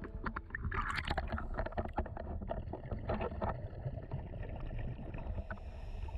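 Water sloshing and bubbling around a scuba diver, picked up by the camera as it moves through the surface and underwater: a low muffled rumble with scattered crackles and clicks, busiest about a second in and again around three seconds in.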